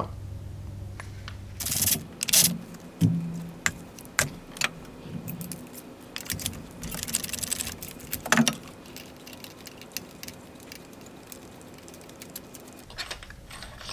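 Ratchet and spark plug socket clicking and metal clinking in short, irregular bursts as a spark plug is loosened and backed out of the Jeep 3.6 L engine, with a sharper knock about eight seconds in.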